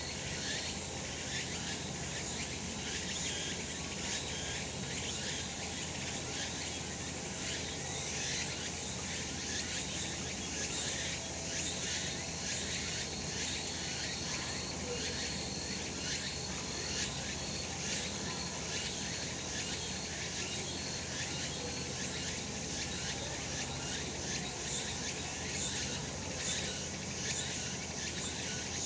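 Cicadas singing in a steady, unbroken chorus: a dense high-pitched buzz made of rapid pulses.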